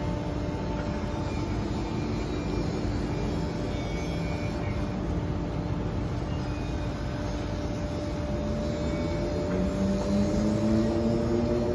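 Steady city traffic noise with a constant hum. Near the end, a vehicle engine rises in pitch as it accelerates.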